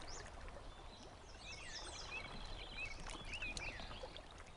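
Wild birds calling: a string of short chirping notes, with a quick high trill about a second in.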